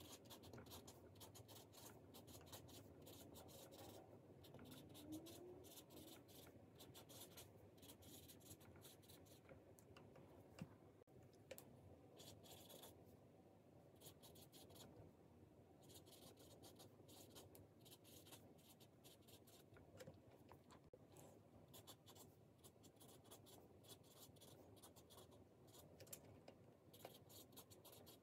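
A felt-tip marker writing on a tabletop dry-erase easel pad, faint and scratchy. The strokes are irregular, with short pauses between words.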